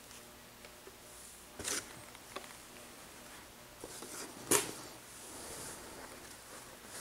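Hands handling and unwrapping a flannel cloth bundle on a table, with soft rustling and a few brief sharp rustles, the loudest about four and a half seconds in.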